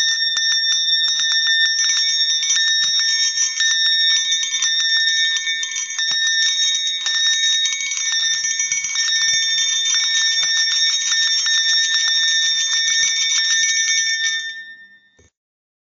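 Dinner bells shaken and rung rapidly and without pause, several high metallic ringing tones over a dense run of strikes, fading out about a second before the end.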